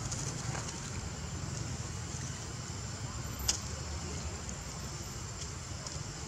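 Steady outdoor ambience: a low rumble with a thin, high steady whine over it, and a single sharp click about three and a half seconds in.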